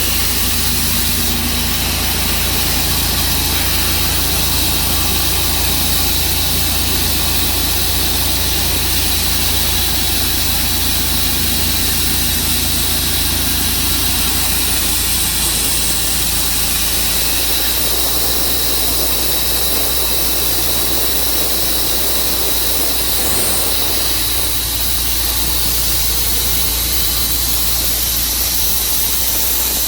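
Portable band sawmill's engine running steadily, a constant low rumble under a broad hiss.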